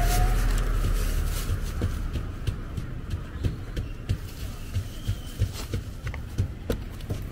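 A low rumble that fades over the first couple of seconds, then scattered light clicks and crinkles of a thin plastic bag being opened and filled.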